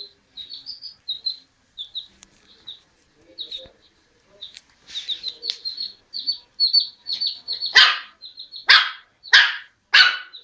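A chicken peeping in quick, short, high chirps, then a puppy barking four times in sharp, high-pitched yaps near the end.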